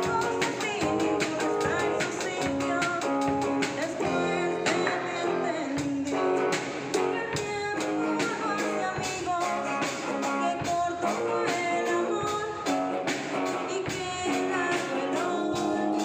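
A rock band playing live: a Mapex drum kit keeping a steady beat under electric guitar, with a singer's voice through a microphone.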